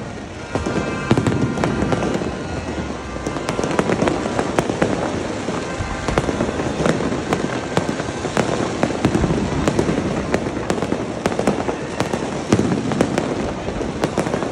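Aerial fireworks going off in a dense, continuous barrage: many sharp bangs and crackling pops overlapping with no break.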